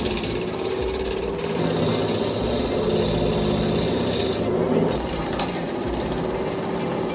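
Wood lathe running with a steady motor hum while a turning tool cuts into a spinning mahogany blank, a hissing cut from about one and a half to four and a half seconds in.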